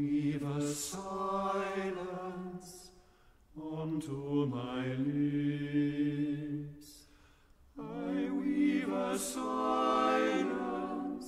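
Mixed SATB choir singing unaccompanied, in three long, slow phrases of held chords with short breaths between.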